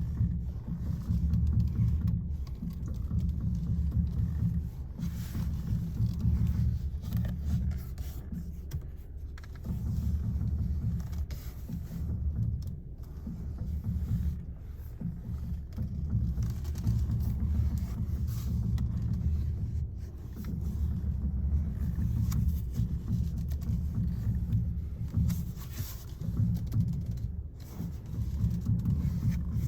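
2016 VW Jetta with a low rumble that swells and fades over a few seconds at a time, broken by a few sharp pops from the steering as the wheel is turned.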